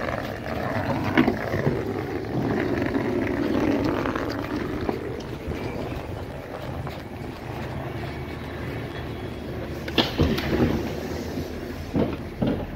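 Electric train standing at a platform, a steady hum of its equipment, with a few sharp knocks near the end as someone steps aboard through the doors.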